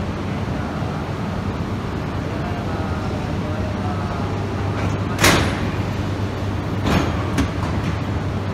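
Automatic couplers of two Shinkansen trains meeting: one loud metallic clank about five seconds in, followed by a softer clunk and a small knock, as the Tsubasa train couples onto the Tohoku Shinkansen train. A steady low hum from the standing trains runs underneath.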